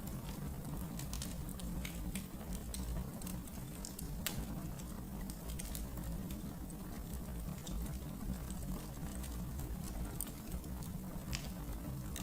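Wood fire crackling in a fireplace: irregular sharp pops and snaps, a few louder ones, over a steady low rumble of the flames.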